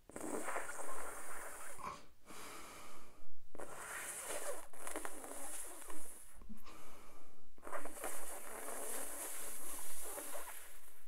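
A woman breathing in through her tongue rolled into a tube and out through her nose, three times: airy breaths with short breaks between them.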